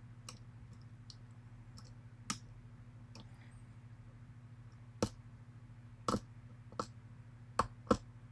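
Sharp metallic clicks from handling a pinned challenge lock with its clamp and picking tools: one about two seconds in, then five irregular clicks in the last three seconds, over a steady low hum.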